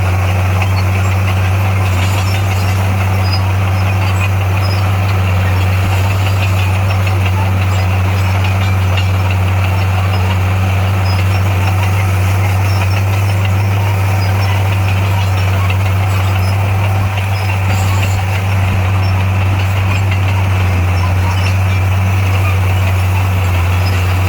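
Heavy construction machine's diesel engine running steadily, a constant low drone.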